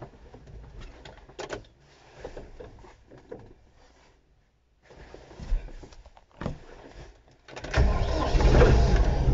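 Steyr 955 tractor's diesel engine starting about three-quarters of the way through and then running steadily, after a few small knocks and clicks.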